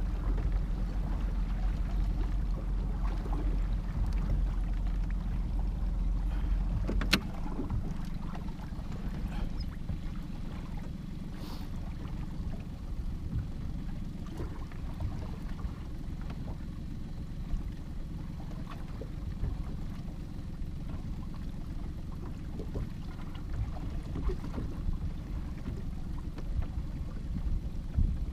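Small boat drifting on choppy lake water: water lapping against the hull under a low rumble, with scattered light clicks. A single sharp click comes about seven seconds in, where the low rumble drops away.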